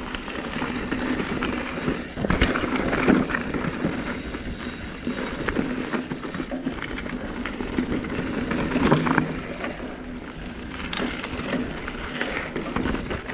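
Mountain bike ridden over a dry, rocky dirt trail: tyres crunching over gravel and leaf litter and the bike rattling and knocking over bumps, with wind noise on the mic. The hardest jolts come about three and nine seconds in.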